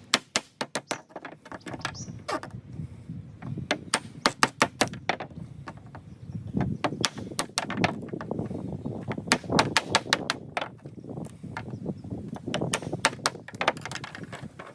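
Bursts of quick, sharp knocks, several strikes to a burst, as tough oak is split into small fuel sticks on a metal tabletop.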